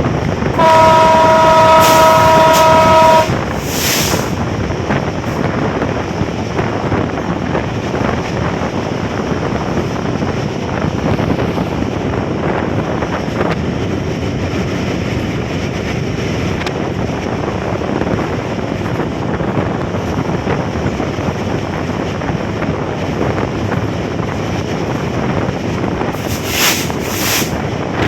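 Bangladesh Railway train's multi-tone horn sounding one long chord in the first three seconds, then the steady rush and rumble of the train running at speed, with wind noise.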